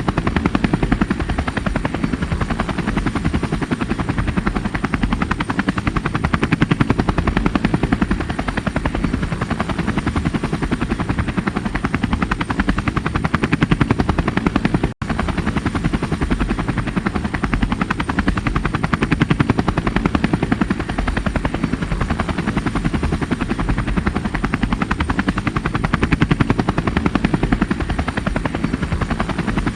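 Helicopter rotor and engine running steadily, a fast, even chop of the blades over a low drone, cutting out for an instant about halfway through.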